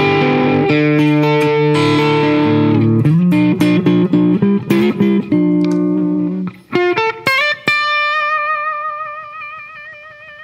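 Hollow-body electric guitar played through the Fairfield Circuitry Accountant compressor pedal: ringing chords, then quicker single notes, then a last note held with vibrato that fades slowly near the end.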